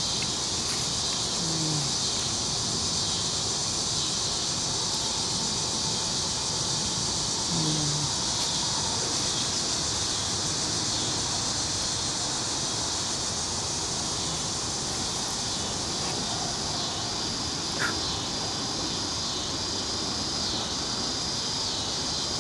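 A steady high chorus of insects, pulsing faintly in the second half, with two brief low squeaks and one sharp click.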